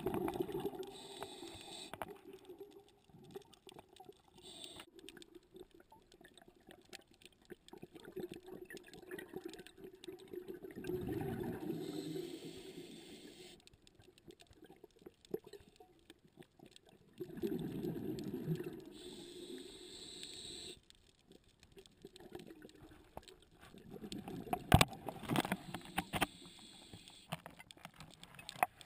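Scuba diver breathing through a regulator, heard underwater: exhaled bubbles gurgle out in bursts every several seconds, with quieter stretches of intake between. A few sharp clicks come near the end.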